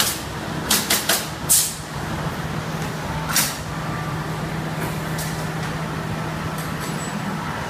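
Workshop room noise: a steady low hum under an even hiss, with a few sharp clicks and knocks and two short hissing bursts in the first half.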